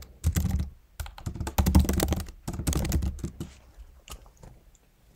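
Typing on a computer keyboard: a quick run of key clicks that thins out and stops after about four seconds.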